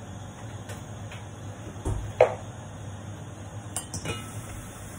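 Metal kitchenware clinking over a steady low hum: a sharp clink about two seconds in, then the stainless steel pan lid knocking and ringing against the pan as it is gripped, about four seconds in.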